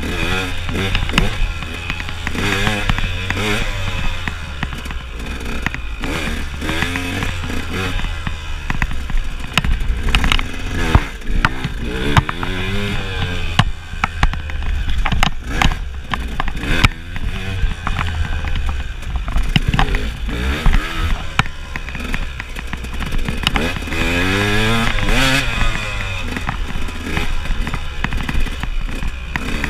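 KTM enduro motorcycle engine revving up and down as it is ridden hard off-road, with frequent sharp knocks and clatter from the bike over rough ground.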